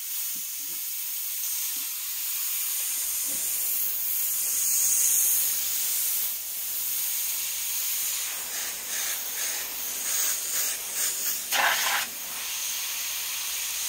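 Airbrush spraying white paint with a steady hiss of air, with a few short bursts as the trigger is pulsed near the end.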